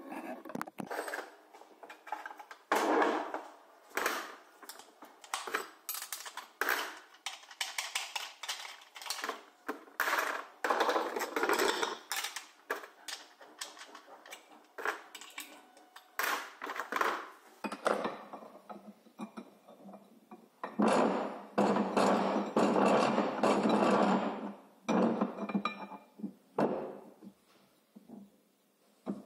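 Irregular clicks, clinks and knocks of metal tools and parts handled on a workbench as an angle grinder's cutting disc is changed with a spanner and a steel bar is set in a bench vise. A denser few seconds of rattling comes about two-thirds of the way through.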